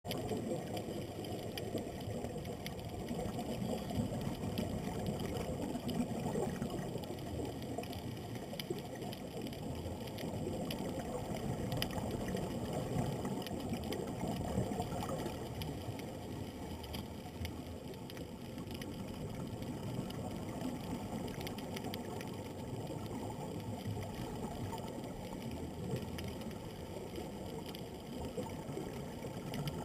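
Muffled underwater noise heard through a GoPro's waterproof housing on a scuba dive: a steady low rush of water with faint ticks and no clear tones.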